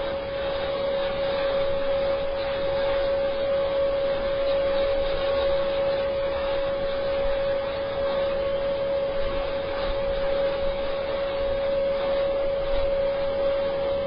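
EuroProp TP400-D6 turboprop engine of the Airbus A400M running steadily on a test run. It makes a constant noise with one steady tone held above it.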